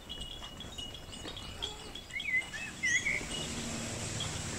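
Birds chirping: a handful of short, quick chirps a little past halfway, over a faint background hum.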